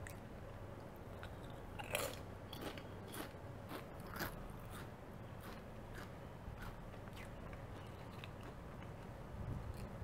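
Lay's potato chips crunching as they are bitten and chewed close to the microphone: a string of crisp crunches, loudest about two and four seconds in, thinning out after about seven seconds.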